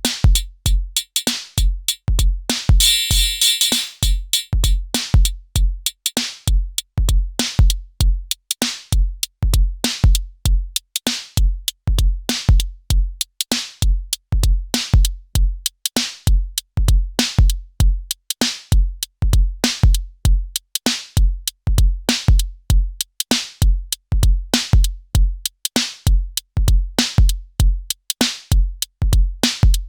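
Elektron Syntakt drum machine playing a looping electronic drum pattern: deep, booming kick hits in a steady rhythm with hi-hat and snare-like hits over them, and a short noisy wash, like a cymbal or noise sweep, about three seconds in.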